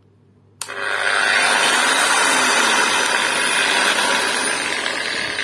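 SEMPROX SAG1801 180 mm 2400 W angle grinder switched on about half a second in and running loud and steady, easing slightly near the end.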